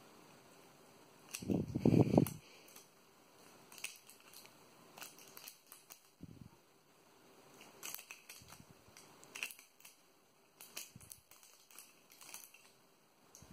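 A cat biting and chewing a piece of thin clear plastic held in fingers: scattered crinkly crackles and clicks. A brief low, muffled rumble about two seconds in is the loudest sound.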